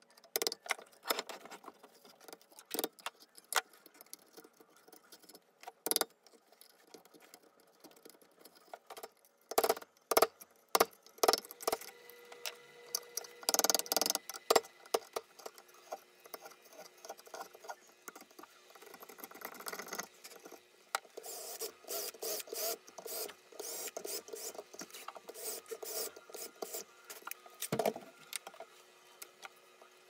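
Small hand carving chisel paring chips out of black cherry wood: irregular sharp cutting clicks and scrapes that come in clusters, thickest in the last third.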